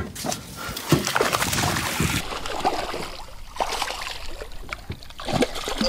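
Water splashing and sloshing as a hooked smallmouth bass thrashes at the surface beside the boat while it is netted. The splashing is densest about a second in, then eases into lighter sloshing with a few short knocks.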